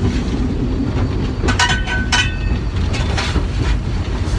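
Steam locomotive running under steam, heard from the footplate: a loud steady rumble of the engine and wheels on the rails, with a short clatter and some metallic ringing around the middle.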